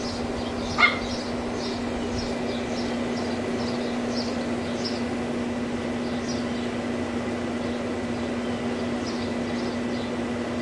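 Neighbours' dogs barking over and over in short high-pitched yaps, with one louder, sharper bark about a second in.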